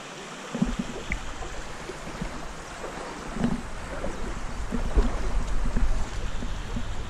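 Small stream running steadily over a shallow bed, with wind buffeting the microphone from about half a second in, heaviest in the second half, and a few soft thuds.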